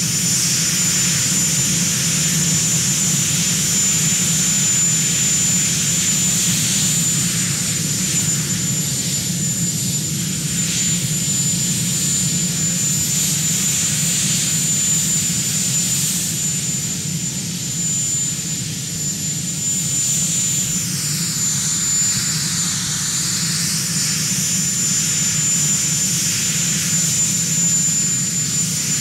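Marine One, a Sikorsky VH-3 Sea King helicopter, running on the ground with its twin turboshaft engines: a steady high turbine whine over a low rumble.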